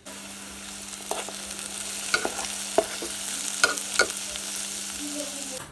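Food sizzling as it fries in a hot pan, with sharp clicks of a utensil stirring and scraping it, over a steady low hum.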